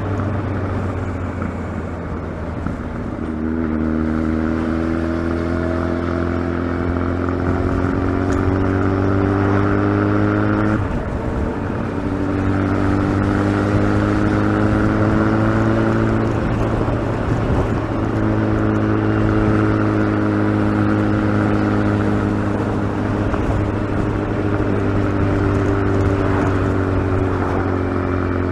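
Kawasaki ZX-12R motorcycle's inline-four engine running under way. Its pitch drifts slowly up and down, with short breaks about a third of the way in and again past halfway.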